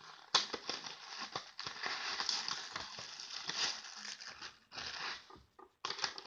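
Paintbrush packaging crinkling and rustling as it is handled, in irregular stretches with a short pause about two-thirds through.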